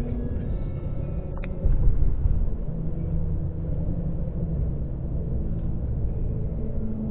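Car road noise heard from inside the cabin while driving over a bridge's open steel grid deck: a steady low rumble of tyres on the grating. There is a brief click and a short swell in level about one and a half to two seconds in.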